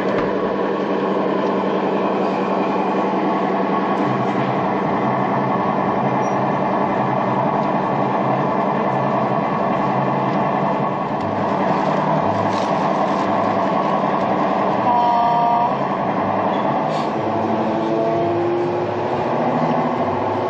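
Sound-fitted O gauge model Class 55 Deltic diesel locomotive running slowly, its speaker playing a steady diesel engine sound. A brief two-tone horn sounds about fifteen seconds in, and the engine note rises and falls after that.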